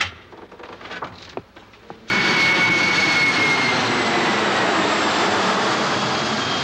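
A few light knocks and clicks, as of a door being handled, then about two seconds in a sudden loud, steady jet-like roar with a thin high whine that slowly sinks in pitch.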